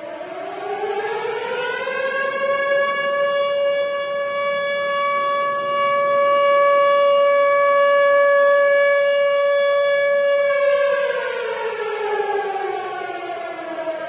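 Tornado siren winding up, rising in pitch over the first couple of seconds, holding one steady wailing tone, then winding down in pitch from about ten seconds in.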